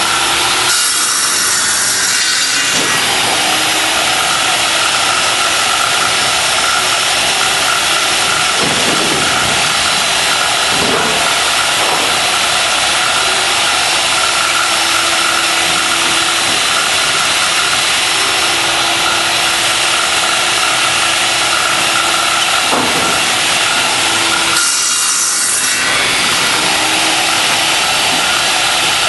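Power saw running steadily while cutting 2x4 lumber down to six-foot lengths. The sound grows brighter and hissier about a second in and again near the end.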